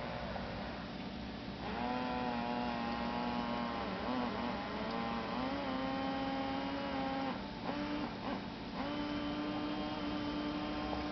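Small DC inflation-pump motor from a wrist blood-pressure monitor, running as an aquarium air pump with a steady buzzing hum. Its pitch wavers a few times and breaks up briefly about two-thirds of the way through.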